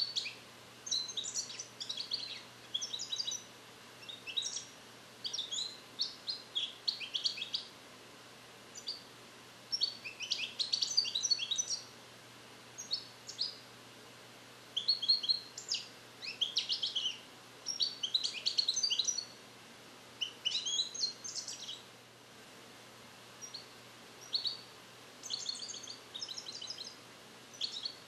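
Song-trained European goldfinch (cardellino) singing: phrases of rapid, high chirping notes with short pauses between them. It is repeating Neapolitan 'passata' song phrases that it has not yet fully mastered.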